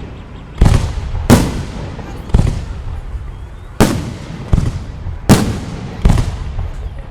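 Fireworks display with firework shells bursting overhead: seven sharp bangs roughly a second apart, each trailing off in a rumbling echo.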